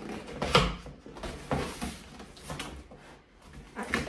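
A knife cutting open a cardboard shipping box: short scraping and rustling of tape and cardboard, several times, the loudest about half a second in.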